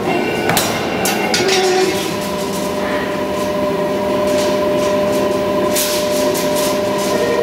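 Simco CSC-5160N CNC spring coiling machine running while it winds heavy suspension coil springs from wire: a steady machine hum with several held tones, with sharp metallic clanks near the start.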